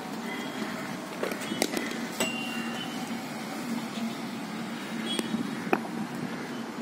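A cricket ball pitching on the concrete net strip and struck by the bat: two sharp knocks about half a second apart, the second followed by a short ringing tone, with a few fainter clicks later, over a steady hum of street traffic.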